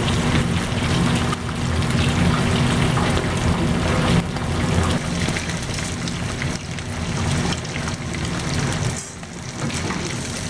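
Battered beef pieces deep-frying in a basket of hot oil at about 350°F: a dense, steady sizzle and crackle of bubbling oil, with a steady low hum underneath.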